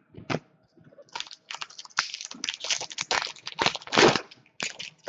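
Foil hockey-card pack wrapper crinkling and tearing as it is opened by hand: a run of irregular crackles, loudest about four seconds in.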